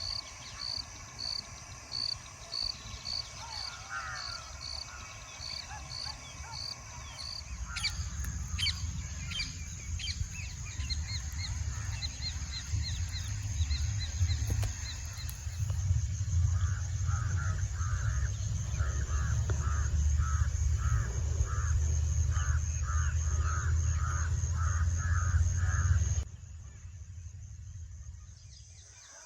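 Birds calling outdoors: a high call repeated at a steady pace, then crows cawing over and over, about twice a second, over a low rumble. The rumble and calls stop suddenly near the end.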